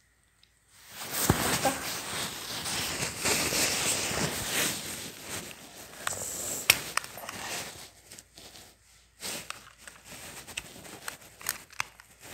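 Handling noise: clothing rustling and rubbing against the phone's microphone, with scattered clicks and knocks, pausing briefly a couple of times.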